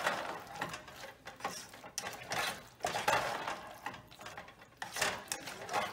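A spatula scraping and stirring mushroom pieces through a thick spiced paste in a saucepan: a run of irregular scraping strokes against the pan.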